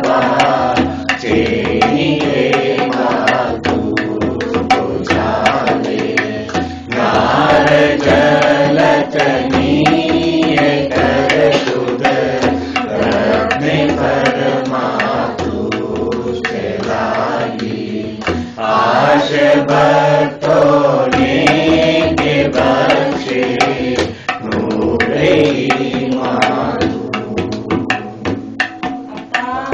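Voices singing a Gujarati devotional arati, with rhythmic percussive beats under the singing.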